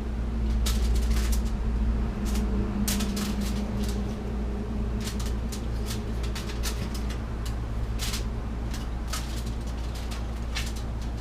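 Crescent roll dough being torn apart along its perforations and handled on a foil-lined pan: scattered small clicks and crackles over a steady low hum.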